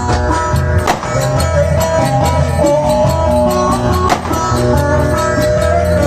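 Instrumental Turkish folk music: a plucked string instrument plays the melody over a steady clicking percussion beat, with two sharper hits about one and four seconds in.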